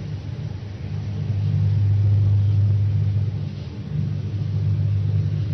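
Steady low hum with a faint hiss over it, swelling a little in the middle.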